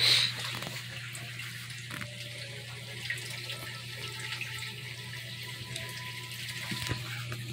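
Wet, crackly mouth noises from a German Shepherd mother dog and her two-week-old puppies huddled against her, over a steady low hum. A short loud rustle at the start.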